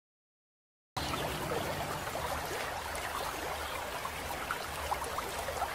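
Water trickling and bubbling, cutting in suddenly about a second in, over a low steady hum.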